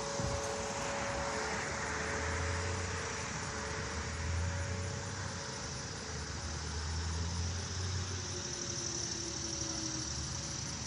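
Steady road-traffic noise with the low rumble of passing vehicles, and the faint, steady tone of a distant outdoor warning siren barely heard beneath it. A lower tone slides down in pitch in the second half.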